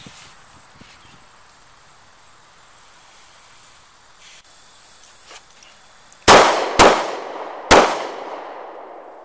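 Three pistol shots from a 9mm Walther PPS: two quick shots half a second apart, then a third about a second later, each followed by an echo that fades slowly. This is the failure drill pattern: two shots to the body, a brief reassessment, then one to the head.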